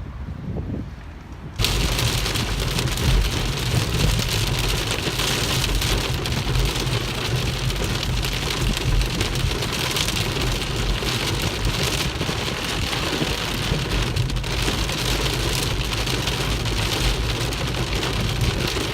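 Heavy rain pouring down, a dense steady hiss that comes in abruptly about a second and a half in.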